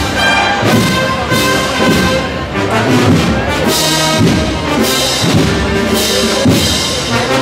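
A Sevillian procession band of brass and woodwinds plays a processional march live over a steady drum beat.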